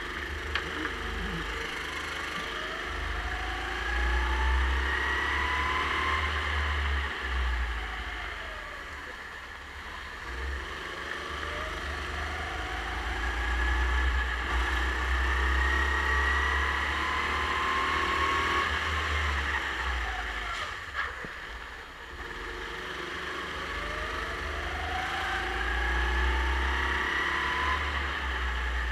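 Kart engine heard from on board, rising steadily in pitch as it accelerates along each straight and dropping back for the corners, three times over.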